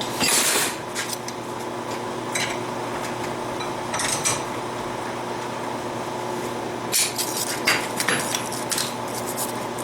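Steel pieces being handled and twisted with tools: a short scrape near the start, then scattered light metallic clinks, with a cluster of clinks a few seconds before the end, over a steady shop hum.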